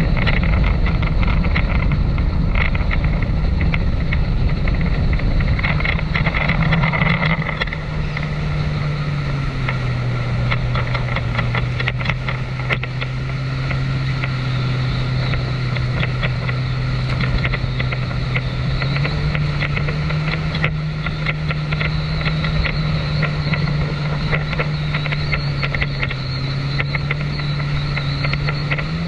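Jet ski engine running under way at speed, with wind and water spray rushing past. The engine pitch drops about a third of the way in, climbs again past the middle, then dips and rises once more near the end as the throttle changes.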